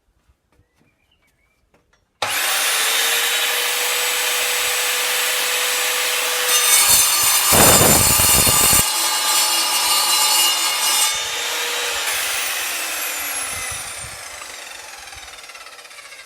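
Evolution R210 SMS sliding mitre saw's 1500 W motor and 210 mm tungsten-carbide-tipped blade, switched on about two seconds in and running free with a steady whine. The blade then cuts through a 3/4-inch mild steel bar for about four seconds, louder and harsher. After the cut the saw is released and the blade winds down with falling pitch.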